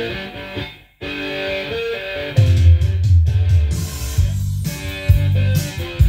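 Guitar music played back from a cassette recording on an Orel 101S-1 cassette deck, the deck's own freshly made recording. The sound drops out almost completely for a moment about a second in, and a heavy low beat with bass comes in at about two and a half seconds.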